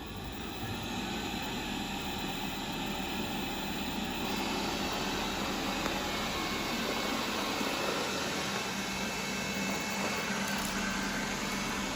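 Roborock E-Series robot vacuum cleaner running with its suction fan and brushes, a steady whirring hum that builds a little over the first few seconds as it starts a cleaning run.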